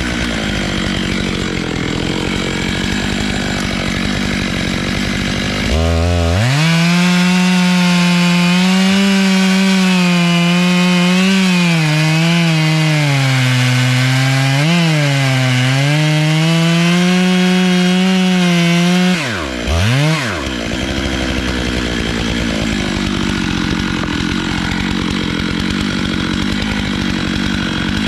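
Stihl MS 661 two-stroke chainsaw idling, then opened to full throttle about six seconds in and cutting through a log. Under load its pitch sags and recovers several times. Around nineteen seconds it drops back to idle after a short blip of the throttle.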